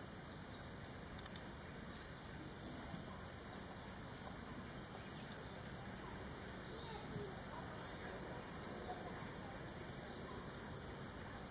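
Insects calling in the forest: two high-pitched trills repeat in phrases of about a second with short gaps between them, over a steady background hiss.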